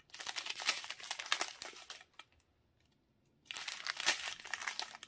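Small sealed plastic bags of diamond-painting drills crinkling as they are handled and turned over in the hands. The crinkling comes in two spells, with a pause of about a second and a half between them.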